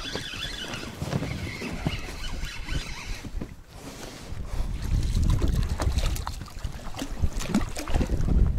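Wind rumbling on the microphone, growing stronger about halfway through, with scattered small clicks and knocks.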